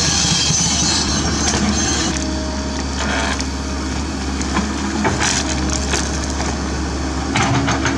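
Komatsu PC130F excavator's diesel engine running under load as the bucket digs into a tree stump's root ball, with roots cracking and splintering and soil breaking away. Sharp cracks come about five seconds in and again near the end.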